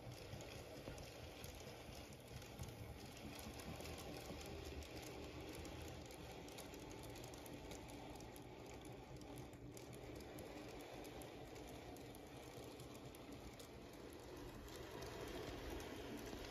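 Märklin Z-scale model train, a BR 96 steam locomotive model hauling freight wagons, running along the track: a faint, dense crackle of fine clicks from the tiny wheels on the rails, growing a little louder near the end.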